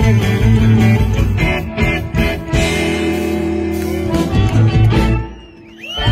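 Live blues band playing, led by electric guitar over bass guitar: a run of short chord stabs, then a held chord. The music drops briefly near the end before coming back in.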